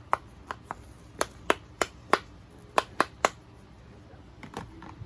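Plastic fidget toys clicking and tapping as they are handled: about ten sharp, irregular clicks, then a few fainter ones near the end.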